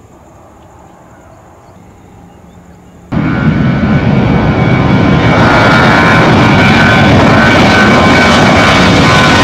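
Faint low hum for about three seconds, then suddenly the loud, steady noise of a Batik Air twin-jet airliner's engines at high thrust as it rolls along the runway, a whine of the fans over the rumble that grows brighter toward the end.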